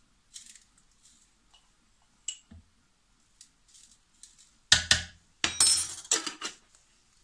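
Teaspoon clinking and scraping in a glass jar of seasoning powder: a few light clicks, then a louder run of clatter and clinks about five seconds in.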